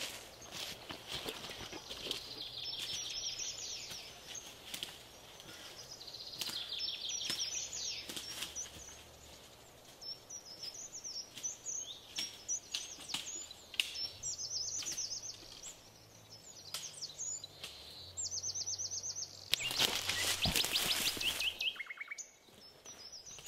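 Forest birds chirping and trilling over a low steady drone that shifts pitch a few times, with scattered light rustles and clicks.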